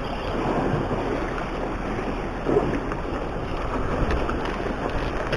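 Steady wind noise on the microphone over the sea washing against the rocks.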